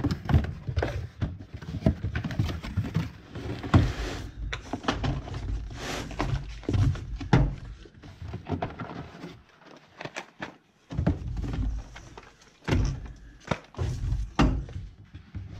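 Irregular thunks, knocks and clatter of objects being handled and set down, with no engine running.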